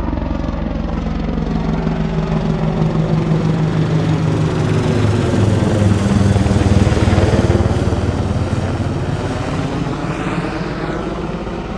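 AH-64 Apache attack helicopter flying overhead, its rotor and engines a steady low beat. It grows louder to a peak about halfway through as the helicopter passes over, then slowly fades as it moves away.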